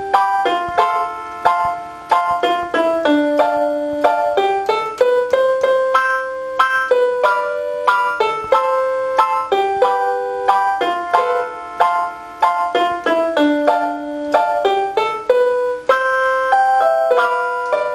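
Casio LK-120 portable keyboard playing a quick melody of short notes that start sharply and fade, over chords.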